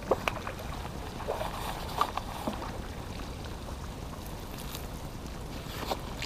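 Water splashing as a trout is netted and the landing net is lifted out of the pond, with water running off the mesh and a few sharp clicks or knocks.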